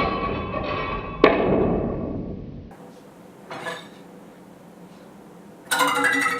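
Iron bar struck and vibrating, ringing with several metallic tones: one sharp strike about a second in that rings and dies away, then a sudden loud new ringing near the end.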